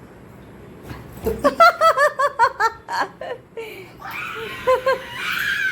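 A woman laughing: a quick run of short "ha" laughs starting about a second in, then laughing again near the end.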